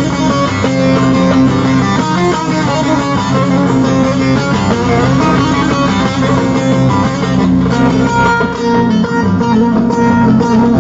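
Instrumental passage of Turkish folk music led by plucked string instruments, played steadily with no singing.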